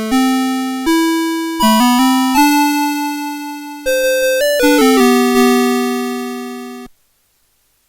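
CITIZEN Melody Box 30 melody alarm clock playing one of its built-in tunes: a simple electronic melody with accompaniment, each note struck and fading away. The tune stops abruptly about seven seconds in.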